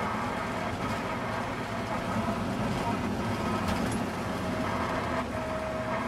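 Steady engine and tyre noise of a moving car, heard from inside the cabin.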